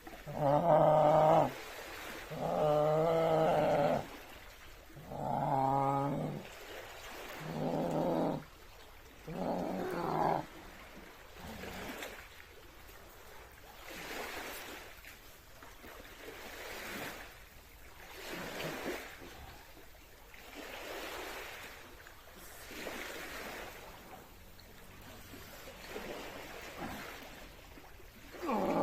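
A man gives five loud drawn-out roars of effort, about two seconds apart, during a strenuous workout. After that he breathes hard and heavily, one breath every couple of seconds.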